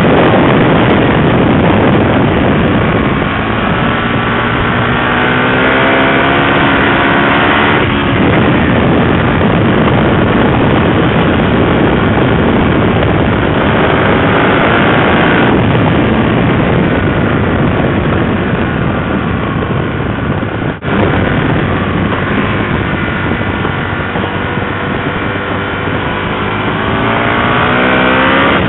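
2007 Aprilia RSV 1000R's V-twin engine through LeoVince aftermarket exhaust cans, loud under way. It rises in pitch under acceleration three times, with sudden drops about 8 and 15 seconds in as the throttle closes or it shifts gear.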